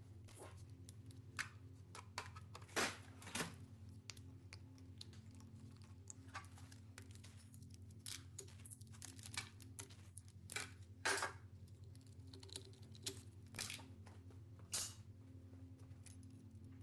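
Irregular light clicks and clinks of hand tools and small metal engine parts being handled during an engine teardown, over a steady low hum.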